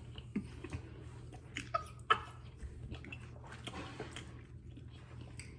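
A person chewing a mouthful of sauce-coated fried chicken finger, with scattered soft clicks and wet smacks over a low steady hum.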